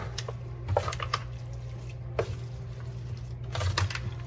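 A spatula stirring moist cornbread dressing, with eggs just mixed in, in a disposable aluminium foil pan: soft squishing with scattered short scrapes and taps against the foil, a cluster of them near the end.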